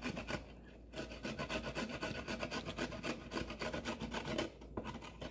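Small carrot being grated by hand on the fine side of a grater, in quick repeated strokes, with short pauses about half a second in and near the end.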